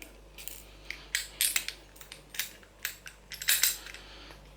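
Irregular sharp metallic clicks and clinks as a disc-detainer pick is worked out of an Abloy Sentry 342 padlock, the loudest cluster about three and a half seconds in.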